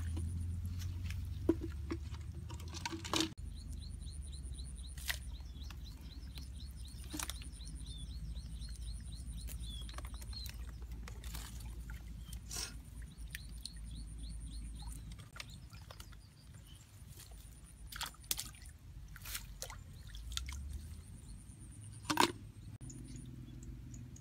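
Scattered knocks, clicks and rustles as a woven bamboo fish trap is handled among grass in shallow water, over a low rumble. A run of quick high chirps, about four a second, repeats for several seconds in the first half.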